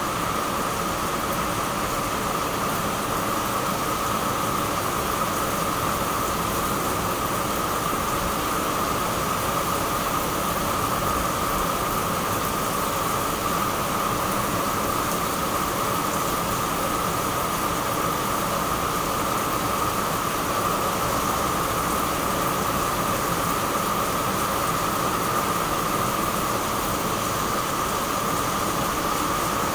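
Heavy rain pouring steadily onto leaves, potted plants and roof tiles: an even, unbroken hiss.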